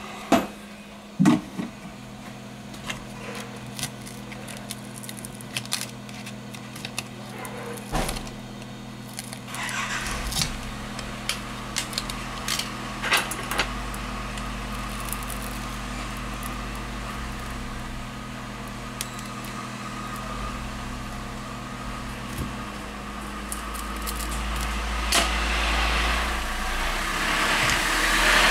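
Hot-air rework gun running with a steady hum, under scattered clicks and light knocks as the tablet's glass and display panel are handled and pried apart. The hum stops about three-quarters of the way in, and a louder rushing blow of air builds over the last few seconds.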